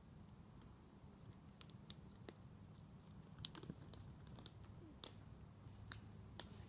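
Near silence: faint outdoor background with about a dozen light, scattered crackles and ticks.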